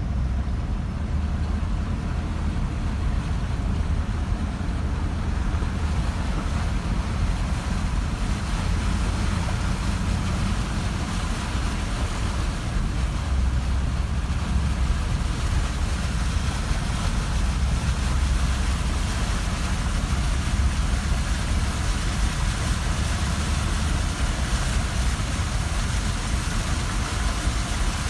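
A car driving through water on a flooded road: a steady low engine and road rumble, with a hiss of water under the tyres that grows stronger after a few seconds.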